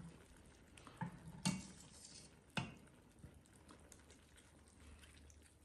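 Sugar syrup ladled from a steel ladle over freshly baked baklava in an enamel tray: a brief soft sizzle where the syrup hits the pastry, and a sharp clink of the ladle.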